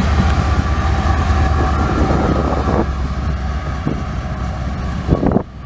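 Diesel locomotive at the rear of a CSX tank-car freight train passing close, its engine drone mixed with wheel and rail rumble, easing off as it pulls away. The sound drops away abruptly near the end.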